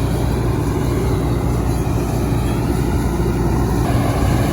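Heavy diesel harvest machinery running steadily close by: the engine drone of combines at work, with a steady low hum throughout.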